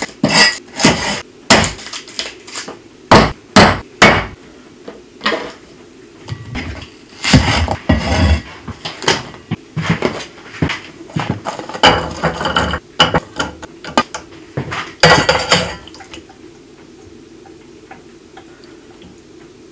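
Food prep on a wooden cutting board: a run of sharp knocks as a garlic clove is crushed and cut. Then come clinks and handling sounds as vegetables are set on a stainless steel tray and raw chicken skin goes into a saucepan. Only a low steady hum remains for the last few seconds.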